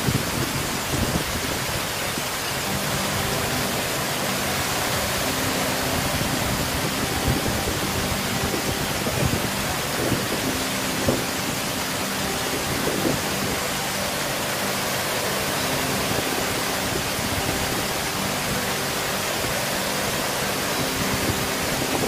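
Waterfall pouring down a rock face into a rock pool: a steady, even rush of falling and splashing water.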